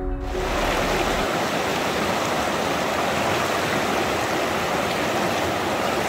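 Background music cuts off just after the start, giving way to a steady rush of flowing water, like a stream or rapids.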